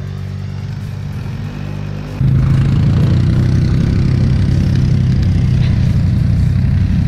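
ATV engines running. About two seconds in, the sound jumps much louder as a single engine is heard close by, running steadily with a rapid, rough pulse.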